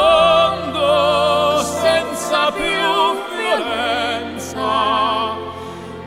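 Background music: operatic singing, long notes with wide vibrato, over orchestral accompaniment.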